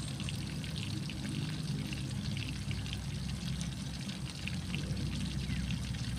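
Whole fish frying in oil in a metal pan over a wood fire: a steady sizzle with scattered small crackles, over a constant low rumble.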